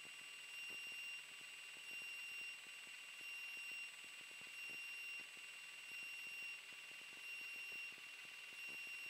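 Faint electronic tones on the light aircraft's intercom audio: a steady high whine, with a higher beep pulsing on and off about once every second and a quarter. No engine rumble comes through.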